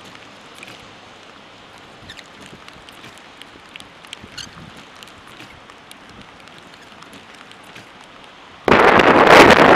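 Low, steady storm background with a few faint scattered ticks, then, near the end, a sudden loud rush of gusty wind buffeting the microphone.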